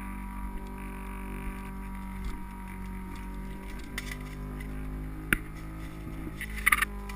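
Steady whine and hum of an anti-fog goggle fan running right beside the camera, muffled by a waterproof camera case. A sharp click about five seconds in and a short rattle of clicks near the end.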